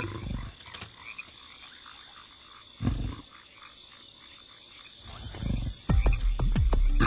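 Deep guttural belching and retching sounds: a few short ones spaced apart, then a louder quick run of several falling croaks near the end.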